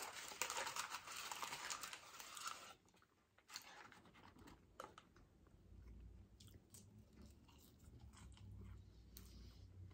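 Close-up chewing and crunching of fast food, mixed with handling of paper food packaging. It is loudest in the first three seconds, then drops to a few soft clicks and faint chewing.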